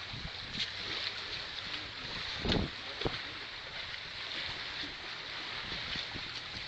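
Steady rushing of wind and sea surf against a breakwater, with a dull thump about two and a half seconds in and a short knock just after.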